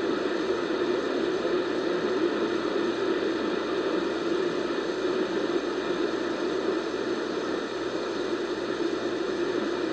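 Steady radio static, an even hiss and rush from a weakly received station, with no voice or alert tones.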